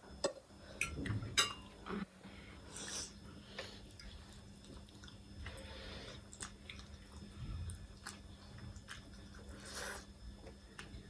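Close-up eating sounds: chewing, with scattered clicks of utensils on a dish and a couple of short hissy bursts, over a steady low hum.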